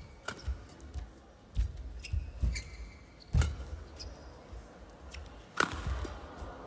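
Badminton rally: rackets striking the shuttlecock with sharp cracks every second or two, the hardest two near the middle and toward the end, with court shoes squeaking briefly on the court mat and footfalls thudding.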